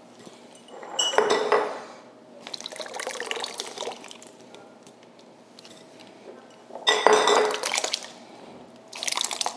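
Crushed tomatoes pouring from a glass canning jar into a plastic zip-top freezer bag in several separate bursts, with clinks of the glass jar; the loudest burst comes about seven seconds in.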